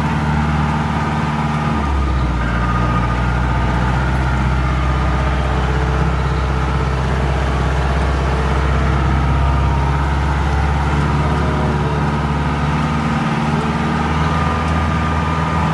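Mahindra jeep engine running as the jeep drives along a muddy off-road track, heard from inside the vehicle; the engine note changes about two seconds in.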